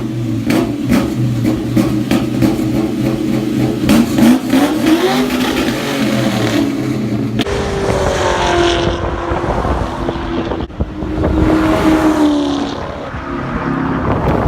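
Ford Mustang GT's V8 engine revving and driving. The note climbs in pitch several times in the first half; after a sudden change about halfway, it sweeps up and down.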